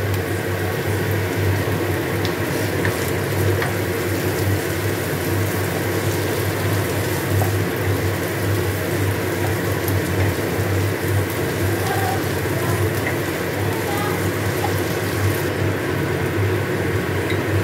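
Onions, garlic and ginger frying in butter and oil in a kadai, stirred with a wooden spatula: a steady sizzle over a constant low hum.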